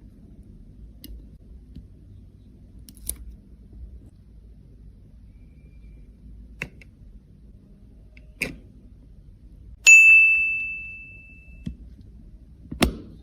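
Scattered light clicks and taps, then about ten seconds in a single bright ding that rings for about a second and a half as it fades, followed by a louder knock near the end.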